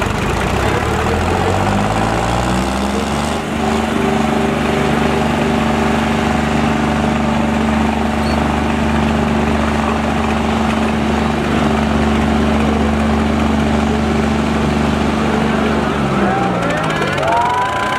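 Tractor diesel engine revving up over about three seconds, then held at full throttle with a steady drone under the load of a tug-of-war pull against another tractor, dropping off about sixteen seconds in. Voices rise near the end.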